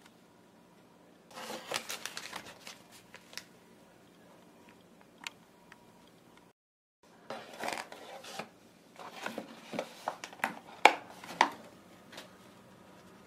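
Paper burger wrappers and a cardboard takeaway box being handled: crinkling, rustling and sharp crackles and taps in two spells, with a short break in the middle and the sharpest crackles near the end.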